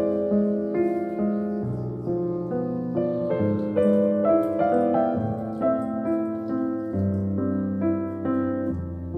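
Background piano music: a melody of separate notes over held bass notes that change every couple of seconds.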